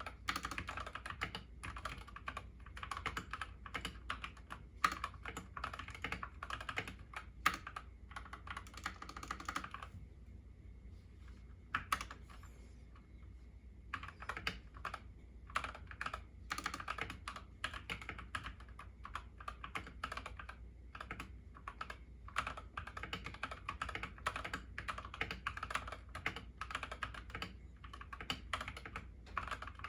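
Fast typing on a YUNZII KC68 mechanical keyboard with lubed Gateron Yellow linear switches and XDA keycaps: a dense, even patter of keystrokes, pausing for a few seconds about a third of the way through before carrying on.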